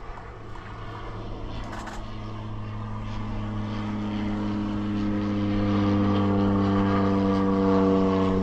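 An engine running with a steady, unchanging pitch, growing louder over the first several seconds and then holding.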